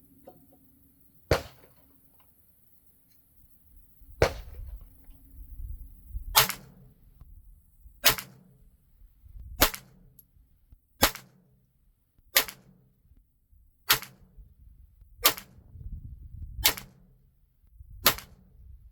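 Slow string of .22 LR shots firing CCI Green Tag competition ammunition: about eleven sharp cracks, roughly one every one and a half seconds.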